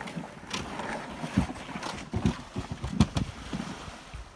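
Kayak hull with a paddler aboard scraping and bumping down a sandy stepped ramp into a lake, a rushing slide broken by irregular knocks, the heaviest about a second apart, as the boat reaches the water.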